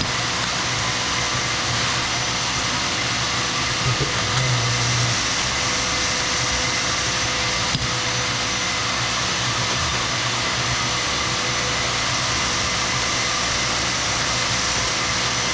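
A power tool's motor running steadily with a constant whine, with a brief low thump about four seconds in.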